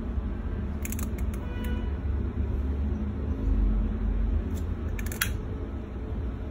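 Steady low rumble with a few sharp clicks from a long-neck butane utility lighter being triggered, a short cluster about a second in and another around five seconds in, as the lighter is relit.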